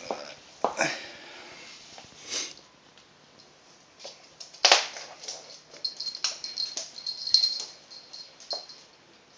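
Raccoon dog sniffing and shuffling about on a wooden floor: scattered rustles, scuffs and clicks, the loudest a sharp knock about five seconds in, with a faint thin high tone from about six to eight seconds.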